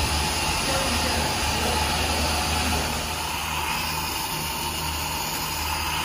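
Steady rushing hiss with a low hum underneath, easing slightly about three seconds in, from the machinery of a shirasu boiling workshop where a large cauldron is boiling and giving off steam.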